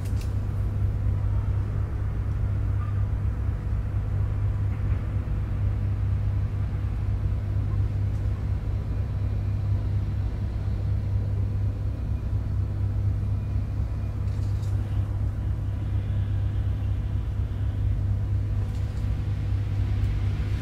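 Steady low background rumble that never changes, with a faint steady hum above it.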